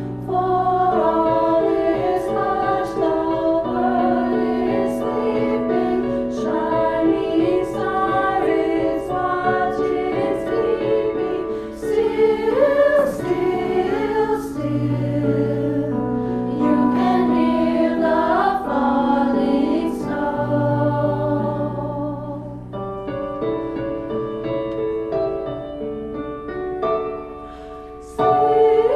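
A choir singing in held, sustained chords, softer for a stretch near the end.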